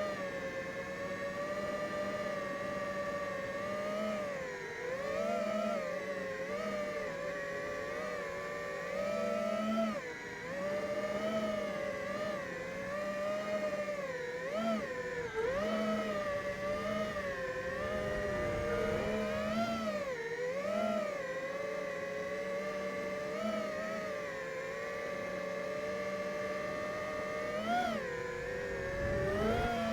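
FPV racing quadcopter's brushless motors and propellers whining, the pitch rising and falling constantly as the throttle is worked.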